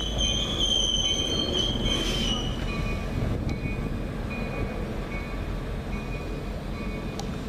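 Commuter train's wheels rumbling on the rails as it pulls away, with a high steady wheel squeal for the first couple of seconds, then fainter short squeals repeating about twice a second.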